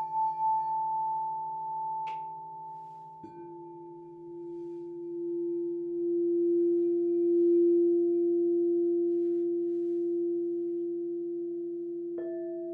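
Crystal singing bowls ringing in long, sustained pure tones. A higher bowl's tone wavers and fades out. A lower bowl sounds about three seconds in and swells as it is played, and another bowl is struck near the end.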